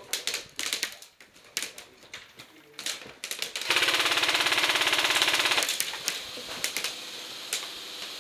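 Airsoft gun firing a full-auto burst of about two seconds, a fast, even rattle of shots a little over three seconds in. Scattered sharp single snaps and clicks come before and after it.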